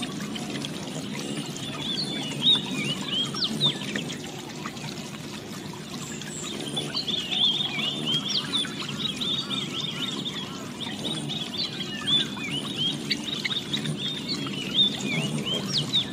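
Many short, high bird chirps over a steady trickle of water. The chirping grows busier from about halfway through.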